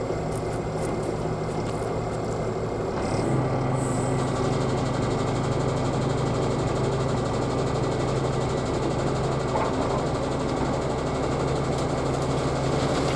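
Peterbilt 359 dump truck's diesel engine running steadily, stepping up to a slightly higher, louder steady speed about three seconds in and holding there as the loaded dump body is raised.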